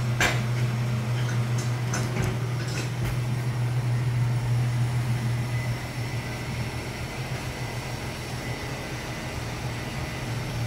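Engine hoist with a Honda K24 engine hanging from it being wheeled across the garage floor: a low rumble with a few clanks and rattles in the first three seconds, easing off after about six seconds. A steady low hum runs underneath.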